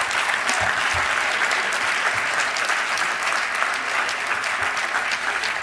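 Audience applauding, dense steady clapping that holds throughout.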